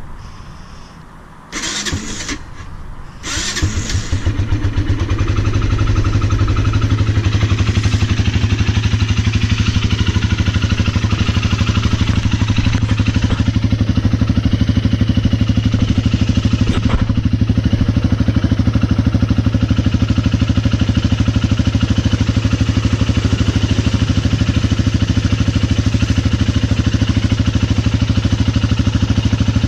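A 2016 Arctic Cat 300 ATV's single-cylinder four-stroke engine cranks in short bursts, catches about four seconds in, then idles steadily. It is the first start after an oil change, run for a leak check.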